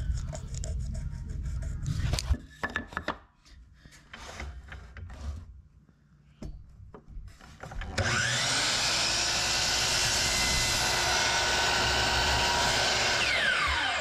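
A few light knocks and clicks as a wooden board is handled and set in place. About eight seconds in, an electric miter saw starts up and runs steadily at full speed, crosscutting a pine 2x2. Near the end the trigger is released and the blade's whine falls in pitch as it spins down.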